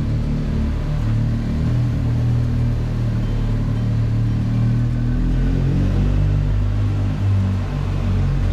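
BMW R 1250 GS Adventure's boxer-twin engine running under way, a steady low drone whose pitch shifts slightly as the throttle changes.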